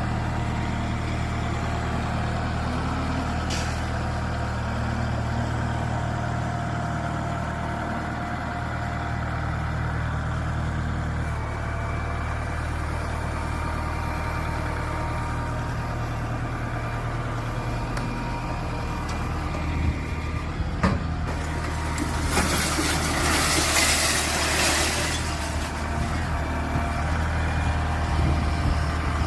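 Heavy engine of construction machinery running steadily, with a sharp knock about 21 seconds in and then a loud hiss lasting about three seconds.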